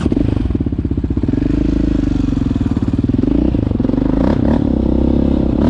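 Loud sport-quad engine running under throttle, the exhaust note swelling a little in pitch now and then.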